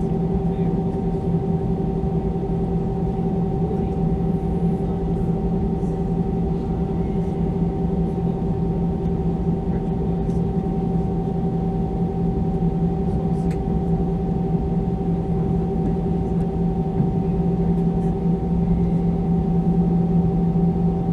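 Steady cabin drone of an Airbus A320-214 standing still on the ground with its engines at idle: an even, low rumble with a few steady hum tones layered over it.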